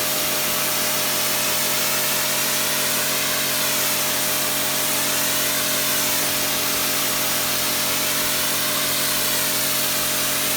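Kärcher K5 pressure washer running steadily under load: the pump motor hums at a constant pitch while the high-pressure water jet from the lance hisses.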